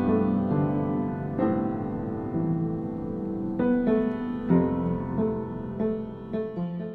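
Background music: a solo piano playing a gentle melody over chords, each note struck and left to ring and fade, dying away near the end.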